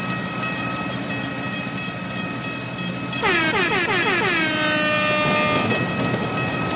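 Cartoon train sound effects: a steady train rumble with held horn-like tones. About three seconds in comes a quick run of falling whistle-like tones lasting about a second and a half.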